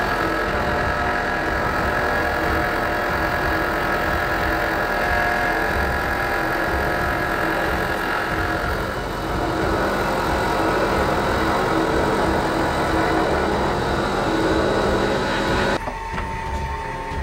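Milling machine running an indexable face mill that cuts a flat on a hex bolt held in a collet block, a steady machine sound. About sixteen seconds in it cuts off suddenly, leaving a quieter steady hum.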